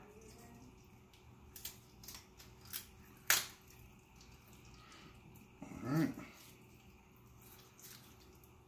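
Kitchen shears cracking through chicken bone while cutting the backbone out of a raw whole chicken: a few sharp snaps, the loudest about three seconds in. A short voice sound about six seconds in.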